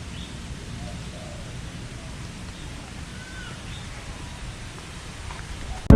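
Faint, scattered bird calls over a steady low outdoor rumble. Music cuts in loudly right at the end.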